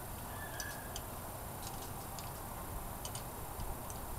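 Faint, scattered light metal clicks and taps of a lifter puller tool and loose lifter retainers being handled down in the engine's lifter valley, over a steady low background noise.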